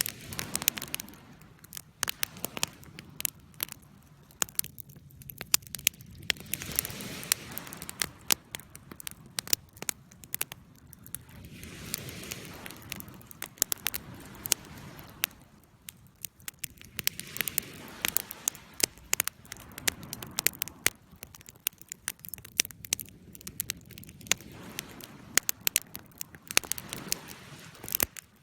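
Campfire burning, with many irregular sharp crackles and pops over a soft hiss of flames that swells and fades every few seconds.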